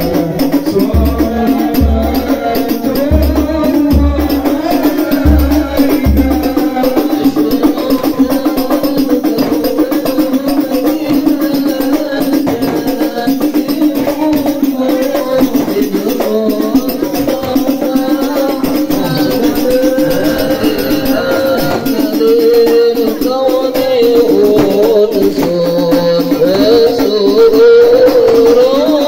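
A congregation singing sholawat together over shaken, rattling hand percussion. The massed voices are held and waver in pitch without a break.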